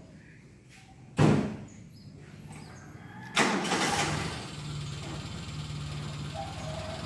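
A sudden loud burst about a second in, then an engine starts about two seconds later and settles into a steady idle.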